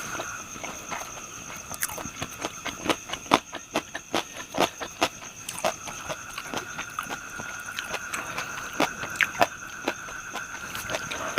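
Close-up chewing of fried pork intestine and liver: irregular crunches and wet mouth clicks, a few of them louder, with the loudest around the middle.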